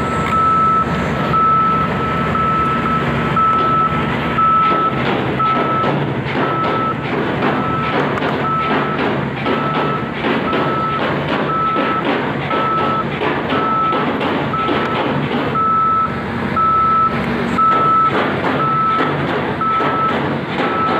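Travel warning alarm of an SR235 rotary piling rig: one steady tone repeating about twice a second, over the rig's diesel engine running.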